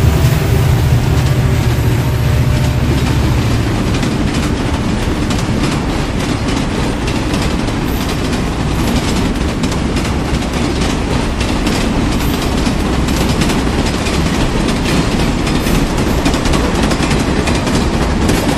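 Passenger coaches of an express train rolling past close by at speed: a loud, steady rumble of steel wheels on the rails with rapid clicking and clattering over the rail joints. A low drone fades out in the first few seconds.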